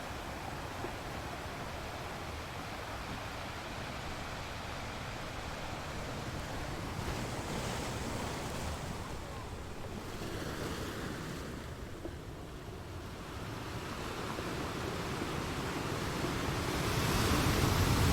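Waves washing against stone in a steady noisy wash that swells and ebbs, quieter around the middle and building louder near the end.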